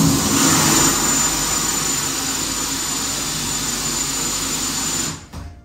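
Cordless drill boring into glazed ceramic wall tile, a steady loud grinding run with a high whine, stopping about five seconds in. It is run on plain rotary drilling, not hammer mode, while the bit cuts through the tile.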